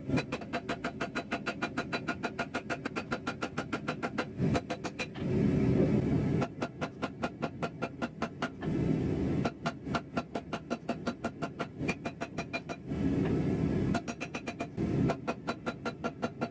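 Hammer blows on hot steel during forging: fast, evenly spaced ringing strikes, about six a second. The strikes give way three times to a second or so of low rushing noise.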